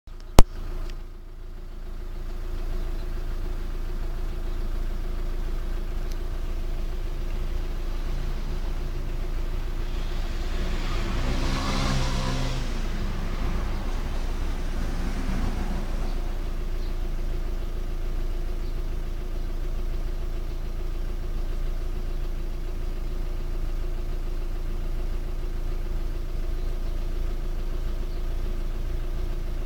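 Skoda Octavia II 2.0 TDI 140 hp diesel engine starting and settling to a steady idle with a constant hum, briefly revved about ten seconds in and again a few seconds later. This is the start-up noise the owner is documenting after the engine was switched off without the clutch pressed.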